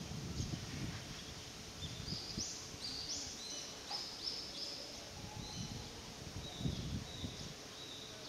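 A small bird singing a run of short, high, rising notes, repeated several times a second for about five seconds, over a low, uneven background rumble.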